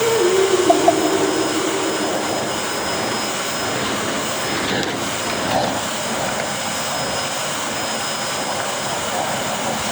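Vacuum cleaner running steadily, a whooshing rush of air with a motor whine that drops slightly in pitch in the first second or so.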